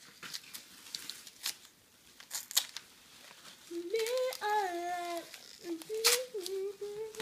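Gift wrapping crinkling and tearing in scattered sharp crackles as a small, stubborn package is picked open. From about four seconds in a girl hums a few long, held notes over it.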